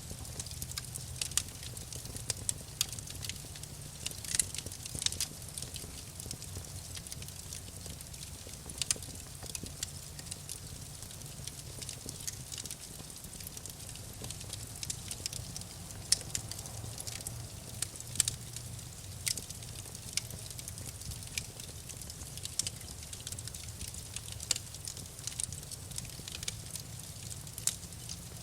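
Wood campfire burning and crackling: frequent sharp pops and snaps at irregular intervals over a low steady rumble of the flames.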